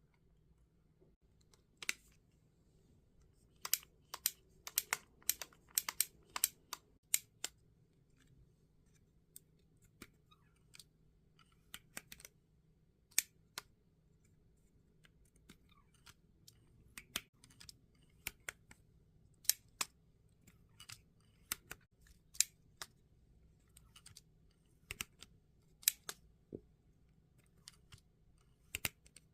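Tokyo Marui Colt M1851 Navy air-cocking airsoft revolver's mechanism being worked by hand: sharp clicks, a quick run of about ten about four seconds in, then single clicks every second or two.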